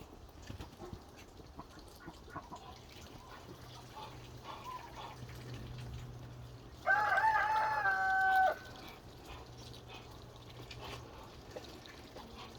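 A rooster crows once, about seven seconds in: a loud call of just under two seconds that wavers at first, then holds one steady pitch and cuts off. Faint, scattered clucking from the flock around it.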